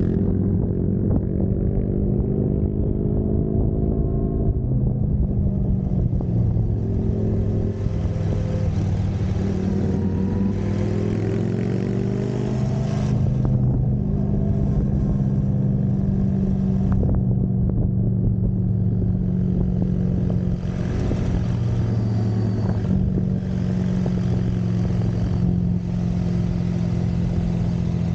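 Motorcycle engine heard from on board while riding, its pitch rising and falling several times as the throttle opens and closes through the curves. A rush of wind comes and goes over it.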